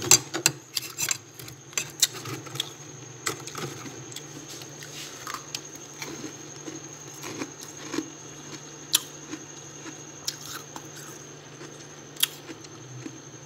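Freezer frost crunching and crackling, with metal clinks. It comes in a dense flurry in the first two seconds, then as scattered crunches over a steady low hum.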